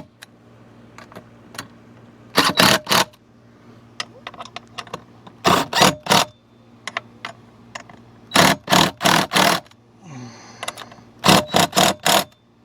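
Sharp clicking from hand tools in four short runs of three or four clicks each, as bolts holding a jet ski's intake grate are threaded in and snugged down.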